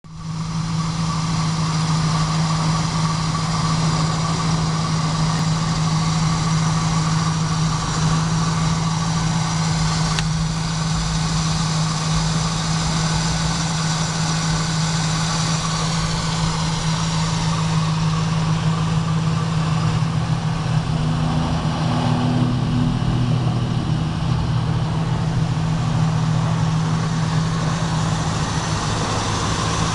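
Chevrolet Camaro SS's 5.7-litre LS1 V8 idling steadily.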